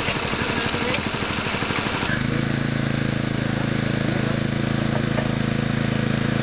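Small engine of a hydraulic rescue-tool power unit running steadily. About two seconds in, its sound changes abruptly to a smoother, steadier hum.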